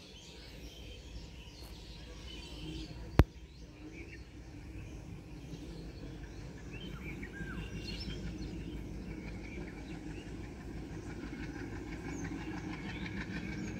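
Birds chirping over a low rumble that slowly grows louder as a distant train hauled by an ALCO diesel locomotive approaches. A single sharp click sounds about three seconds in.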